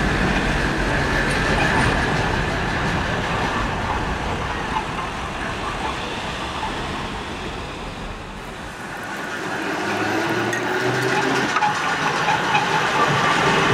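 Vintage electric tram running on street rails as it passes close by, a steady rumble of wheels and running gear. About ten seconds in, a short rising whine comes from its motors.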